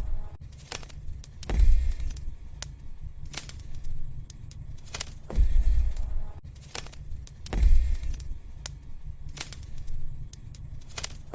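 Wood fire in a fireplace crackling, with sharp irregular pops and snaps and a few low rumbling surges.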